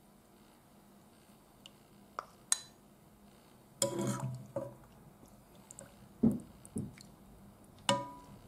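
A metal ladle clinking and knocking against a metal pot and a ceramic bowl as soup is ladled into the bowl. There are scattered clicks, a cluster of clatter about four seconds in, and sharper knocks near the end, the last one ringing briefly.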